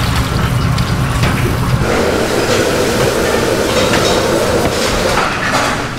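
Tap water spraying onto noodles in a plastic colander. About two seconds in it gives way to a steady kitchen machine hum with a few metal clanks.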